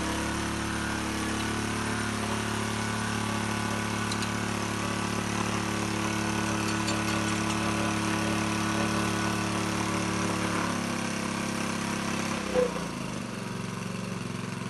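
Small petrol engine of the water pump that feeds the drilling hose, running steadily, then slowing to a lower pitch about eleven seconds in, with a single sharp knock as it settles.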